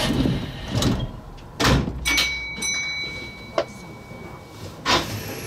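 Electric train's sliding doors working at a station stop: a rush of air noise cuts off at the start, then five sharp knocks, with a steady high tone running for about two seconds in the middle.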